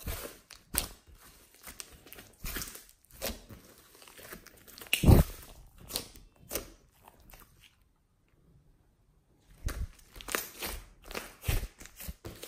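Hands squeezing, pulling and pressing a large lump of thick glossy slime, with irregular wet squelches and sticky pops and tears. The loudest squelch comes about five seconds in. The sound breaks off into silence for about a second and a half around eight seconds, then resumes.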